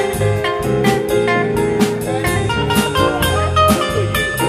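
Live jazz combo playing: electric bass, mandolin, keyboards and drum kit, with the drums keeping a steady beat.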